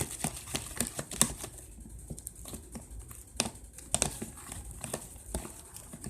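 Homemade slime being poked and worked with activator, giving irregular sticky clicks and small pops, a few a second.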